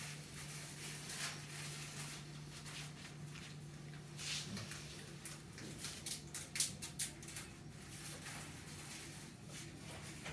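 Quiet sounds of a sleeping dog: soft noisy breaths and a cluster of small clicks and rustles about six to seven seconds in, over a steady low hum.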